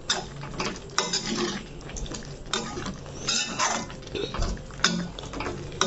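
Metal spoon stirring thick masala gravy in a metal pan, scraping and clinking against the pan in irregular strokes.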